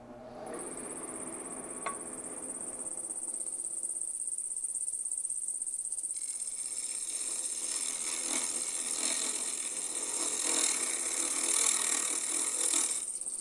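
Wood lathe starting up and running with a steady high whine. About six seconds in, a carbide roughing tool starts cutting the spinning Bois d'Arc blank, adding a scraping hiss that swells and eases.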